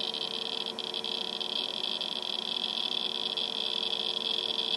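Geiger counter clicking so fast that the counts run together into a dense, high crackling buzz: a high count rate from X-rays given off by adhesive tape peeling in a vacuum. A steady low hum of the apparatus runs underneath.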